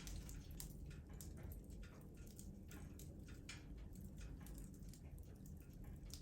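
Wood fire crackling in a fireplace: faint, irregular pops and snaps over a low, steady rumble.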